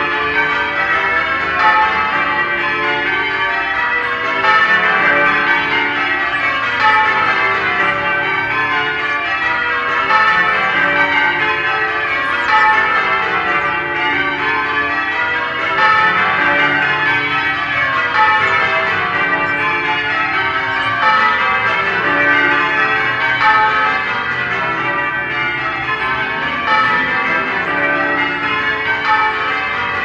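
The bells of St. Philip's Cathedral ringing changes: a steady, continuous sequence of strikes, each row stepping down in pitch, with the rings of the bells overlapping one another.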